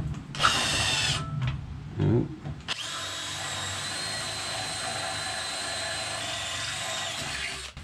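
Makita cordless drill boring a hole through the car's sheet-metal bumper bar. A short burst comes first, then a steady run of about five seconds that cuts off just before the end as the bit goes through.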